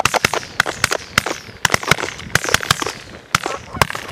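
Several shotguns firing a rapid volley: close to twenty sharp, overlapping reports in about four seconds.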